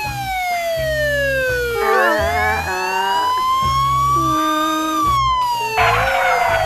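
Police siren wailing slowly: its pitch falls for about two seconds, climbs back up over the next three, then falls again near the end.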